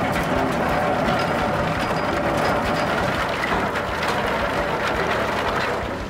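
Eucalyptus log peeler running: steady machine noise with many small knocks and clicks.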